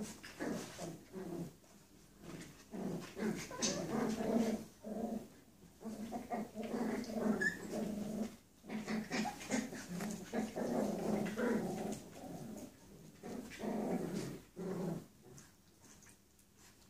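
Six-week-old puppies growling as they play together, in many short rough growls with brief pauses between them.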